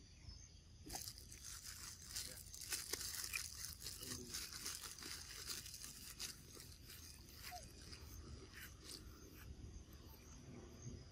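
Faint crackling and tearing clicks of a macaque biting and tearing at a piece of fruit, thick for the first several seconds and thinning out after about seven seconds.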